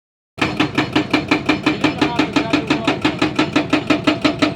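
Powered concrete breaker chipping a concrete pile head: rapid, even hammer blows about six a second, each with a short metallic ring. It starts about half a second in.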